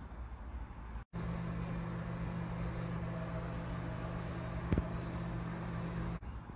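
A steady low electrical hum, like a running appliance motor, with a single sharp click partway through. The sound drops out briefly about a second in and again near the end, where the clips are cut.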